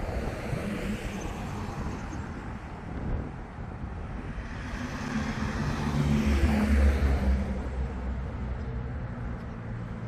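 A car passing by, its engine and tyre noise swelling to the loudest point about six to seven seconds in and then fading, over a steady background rumble.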